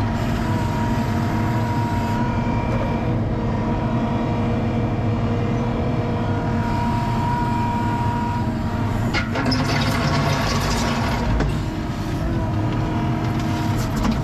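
Skid-steer loader's diesel engine running steadily under load, with a steady hydraulic whine. About nine seconds in, a couple of seconds of rushing, rattling noise as gravel slides out of the tipped bucket.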